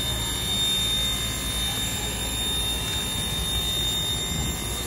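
CK124 steam locomotive standing in steam: a steady rushing hiss with a low rumble underneath and a faint steady high whine.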